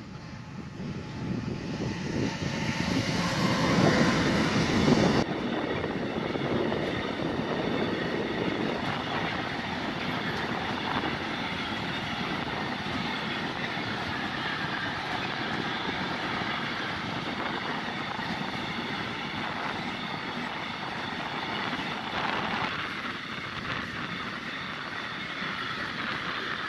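Freight train passing close by. The Siemens Vectron class 193 electric locomotive goes past loudest in the first five seconds, then a long string of container and tank-container wagons rolls by with a steady rumble of wheels on rail.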